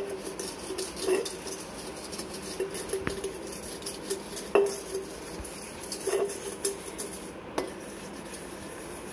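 Copper water pot being scrubbed by hand with a wet cleaning paste, a steady rubbing. Several times the pot knocks as it is handled and gives a short metallic ring.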